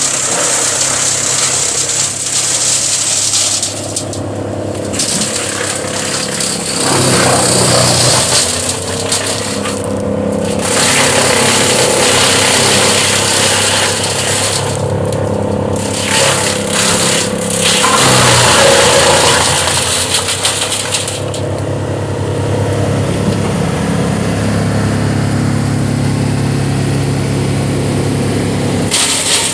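2003 Vermeer BC1000 wood chipper with a Cummins diesel engine running and chipping brush: a steady diesel drone under a loud, shifting rush of branches being shredded, which drops away briefly a few times and swells again as more brush goes in.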